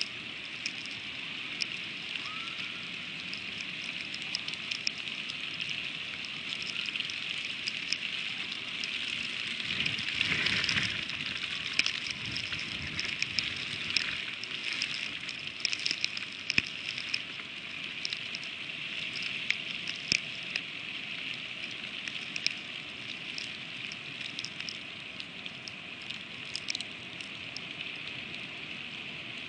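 Freezing rain falling on an eagle nest: a steady hiss with many small, irregular ticks of ice striking. About ten seconds in, a louder rush swells briefly and fades.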